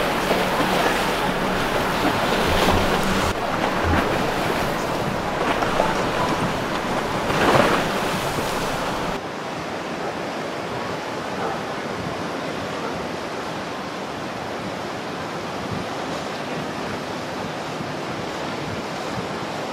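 Wind on the microphone and open-water noise, an even rushing hiss with a faint low hum underneath at first. About nine seconds in it cuts to a quieter, steadier hiss.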